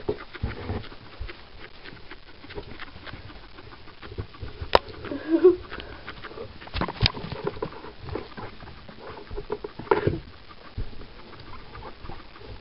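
Guinea pigs moving about and feeding in hay on fleece: scattered light taps, clicks and rustles, the sharpest about five and ten seconds in.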